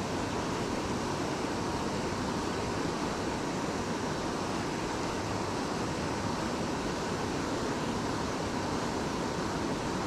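Steady rushing of a low river waterfall, mixed with wind on the microphone.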